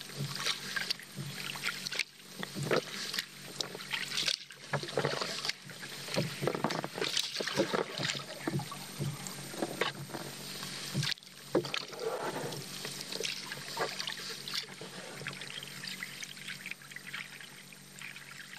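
Kayak paddle blades dipping and splashing in calm water, with water dripping and trickling off the blades. The splashes thin out and get quieter over the last few seconds.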